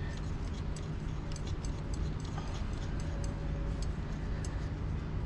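Small irregular clicks and ticks as a cap is screwed by hand onto the drain valve of an oil filter adapter, over a steady low hum.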